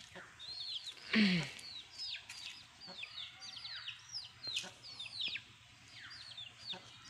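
Chickens around a village yard: many quick, high, falling peeps, several a second, with one louder, lower falling call about a second in.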